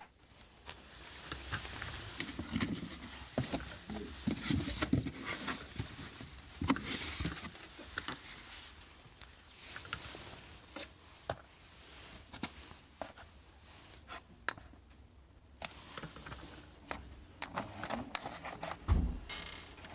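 Hard objects being handled and moved about: irregular clinks, knocks and clatters, with a quick run of sharp clinks and a dull thump near the end.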